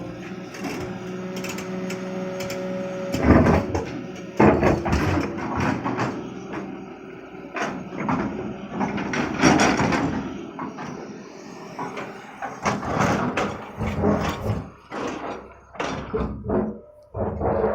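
Excavator engine running under load while its bucket scrapes and knocks through stony soil, in irregular heavy scrapes and clanks. A steady engine hum is plainest in the first few seconds.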